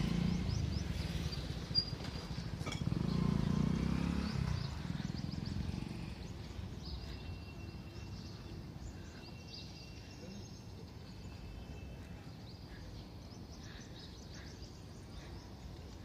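Outdoor background with passing vehicle engine noise that swells twice in the first few seconds and then fades, leaving a quieter hum with small birds chirping.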